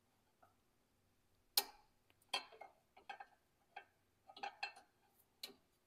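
A pry bar clicking against a steel snap ring and the hex end of the track tensioning bolt as the ring is pushed down into its groove. About ten sharp, irregular clicks, each ringing briefly.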